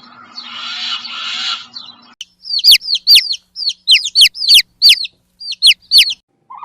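A bird giving a rapid series of about a dozen sharp, high calls, each sliding steeply down in pitch, in quick irregular groups. They start about two seconds in, after a stretch of hiss.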